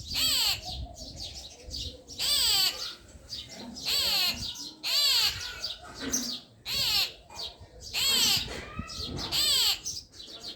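A bird calling over and over: about seven loud, short calls, each sliding downward in pitch, one every second or two.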